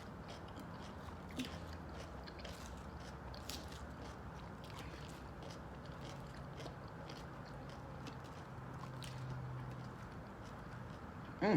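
Close-miked chewing of a mouthful of salad, with irregular soft crunches.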